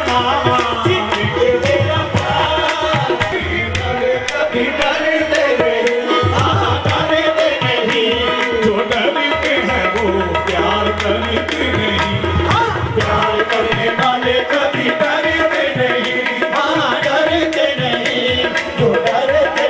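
Live qawwali music: harmoniums playing the melody over a fast, steady hand-drum beat, tabla-like in sound.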